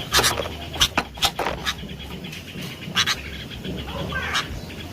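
Sooty-headed bulbul (kutilang) calling: a string of short, sharp notes through the first half, another about three seconds in, and a quick chirping phrase near the end.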